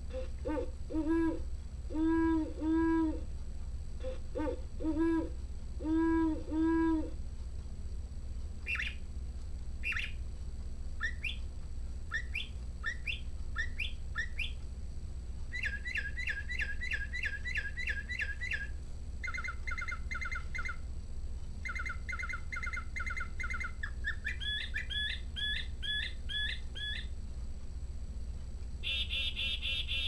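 Mark Feldstein National Audubon Society singing bird clock playing its recorded bird calls in a lower-pitched, slower version. A great horned owl's deep hoots come first, for about seven seconds. Then comes a northern mockingbird's song of varied phrases, each repeated several times, for about twenty seconds, and a black-capped chickadee call starts near the end.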